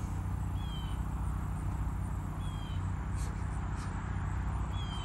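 A steady low rumble with an insect chirping about every two seconds, each chirp a short, high, slightly falling note; a few faint ticks about three seconds in.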